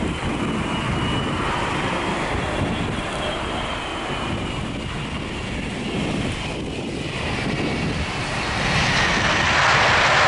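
Jet engines of an Airbus A380 on landing, a steady engine noise with a faint high whine. About eight seconds in it swells much louder and brighter as the airliner rolls past close by on the runway.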